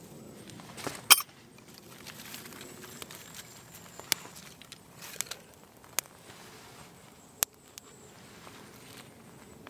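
Small fire of dry grass tinder and fatwood shavings just catching, crackling with a few sharp, spaced-out pops over a faint steady hiss. One louder sharp click comes about a second in.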